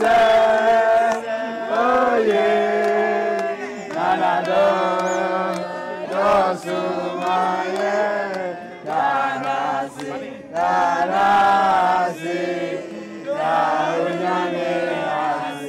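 A crowd of men and women singing together in short phrases that rise and fall.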